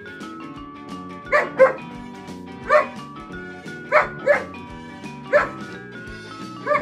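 German Shepherd barking at irregular intervals, about seven short barks, some singly and some in quick pairs, over steady background music.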